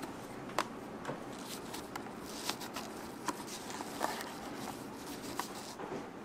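Satin ribbon rustling as it is pulled and tied around a clear plastic box, with a few light clicks and taps from the plastic container being handled.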